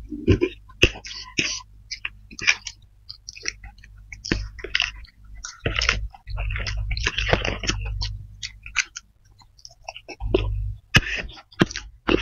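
Close-miked chewing and slurping of fried flat rice noodles (kway teow), a stream of short irregular wet smacks and clicks, with forks clicking against the plate.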